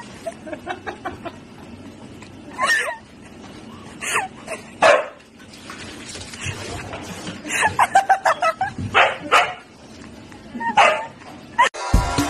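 Dogs barking and yipping in short separate calls, with a quick run of barks a little past halfway. Music starts abruptly near the end.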